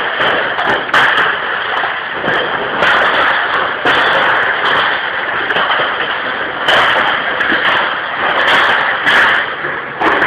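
Crates of glass beer bottles rattling and clinking on a loaded pallet jack as it is hauled over concrete, with frequent irregular sharp knocks from the crates and bottles.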